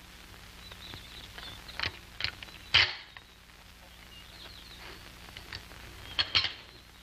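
Sharp metallic clicks and clacks of a shotgun being handled and loaded. The loudest is a single clack a little under three seconds in, and a quick pair comes near the end. Birds chirp faintly between them.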